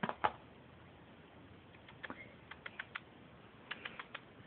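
Two sharp clicks at the start, then a scattering of lighter clicks and taps in small clusters, like typing or something small tapping on a hard surface.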